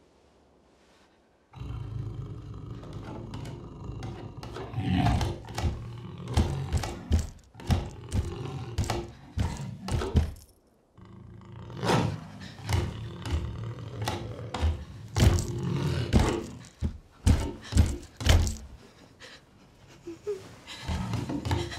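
Beast-like growling and roaring mixed with heavy thuds and banging, as of something pounding at a door. It starts suddenly after a short quiet, breaks off briefly near the middle, and eases near the end.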